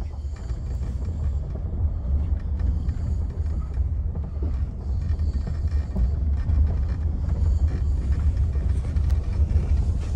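Steady low rumble inside the cabin of a Range Rover Velar driving slowly along a rough track under light, constant throttle.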